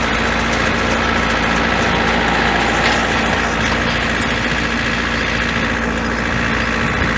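Farm tractor engine running steadily while pulling a hay rake across the field.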